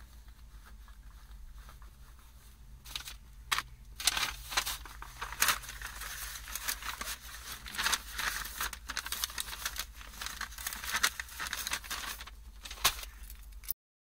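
Sheets of paper rustling and crinkling as they are handled close to the microphone, starting about three seconds in with many quick crackles, then cutting off suddenly near the end.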